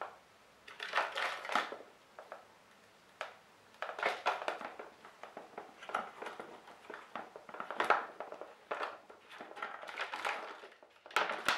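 A mouse jumping and scrabbling inside a clear five-litre plastic bottle trap. Its claws and body scratch and knock against the plastic in irregular bursts, with short pauses between.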